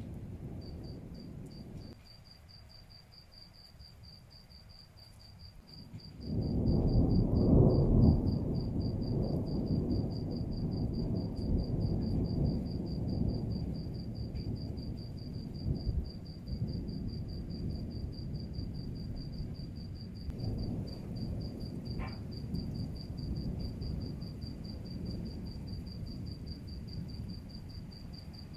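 Thunder rumbling: after a quieter lull, a long roll of thunder swells about six seconds in and goes on rumbling low and continuous.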